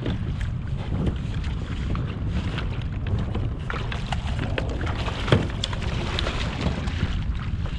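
Wind buffeting the microphone over open water, with splashes and slaps from a hooked fish thrashing at the surface beside a kayak. One sharp splash about five seconds in is the loudest.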